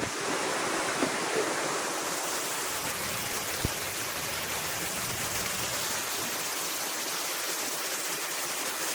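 Waterfall cascades in a mountain stream, a steady rushing of falling water, with a single sharp click a little over a third of the way in.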